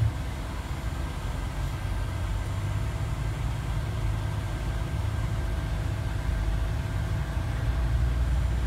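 Low engine rumble heard from inside a bus cabin as the bus creeps along, with a short knock right at the start; the rumble grows a little louder near the end.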